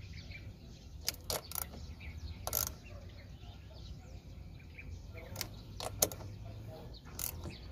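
A socket wrench working the bolts of a Cessna 208B Grand Caravan wheel brake assembly: about eight separate sharp metal clicks and clinks, over a low steady hum.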